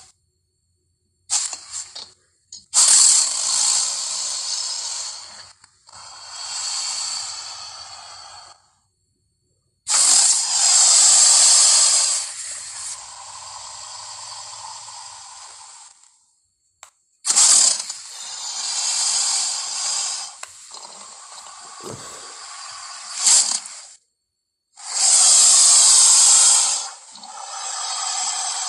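Liopleurodon creature sound effects: a string of hissing, growling calls, most lasting two to six seconds, with short silent gaps between them.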